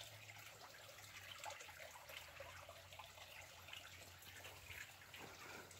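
Near silence: faint irregular ticking and crackling over a low steady hum.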